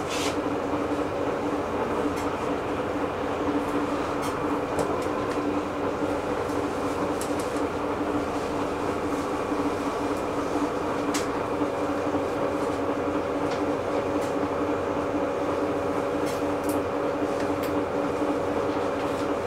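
Inside a city bus under way: a steady hum from the drive and road noise through the cabin, with occasional light clicks and rattles. A second, higher hum joins about halfway through.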